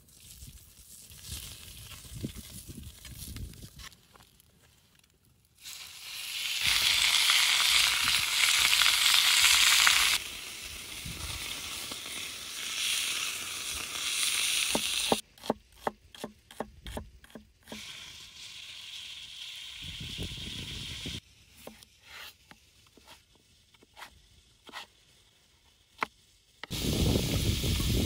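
Meat frying on a hot steel griddle over a wood fire: a loud sizzle starts about six seconds in, then eases to a steadier sizzle with sharp taps and scrapes of a metal spatula. The sizzle jumps up again near the end as more food goes onto the hot griddle.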